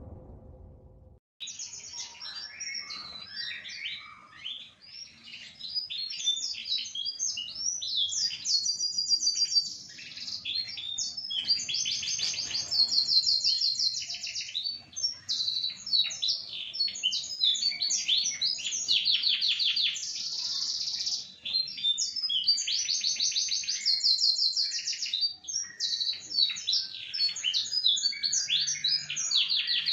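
Domestic canary singing a long, near-continuous song of rapid trills and rolls, starting about a second in.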